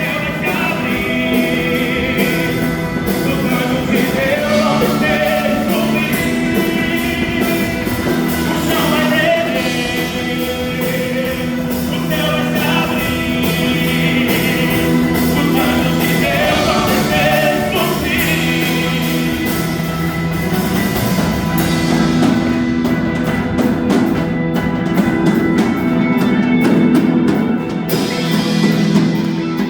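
Portuguese-language gospel worship song: a lead voice singing a wavering melody over long held chords.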